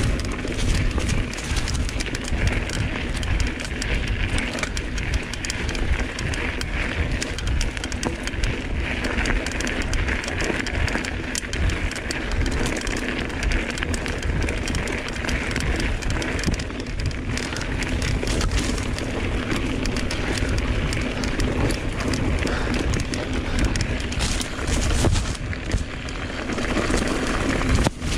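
Giant Reign enduro mountain bike ridden down a dirt trail: tyres rolling over the ground and the bike's frame and chain rattling in a dense crackle of small knocks over rough terrain, with wind rushing on the microphone.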